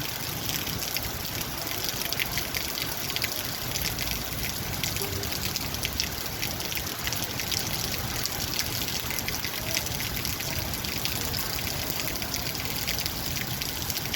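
Heavy rain falling steadily, a dense patter of drops over a constant hiss of water, in a storm with wind.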